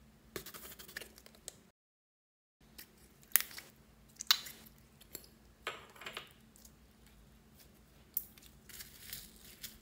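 Clear slime squeezed and pressed between the fingers, giving wet squishes and sharp clicking pops in several short bursts. About two seconds in, all sound cuts out for nearly a second.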